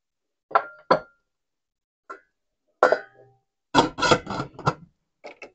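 Kitchen utensils clinking and knocking against cookware: two clinks about half a second in, single knocks around two and three seconds, a quick run of clatters near four seconds and two more at the end, some ringing briefly.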